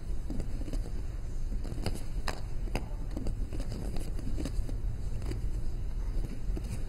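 Two golf balls clicking against each other as they are rolled together in one hand, a few irregular clicks over a low steady hum.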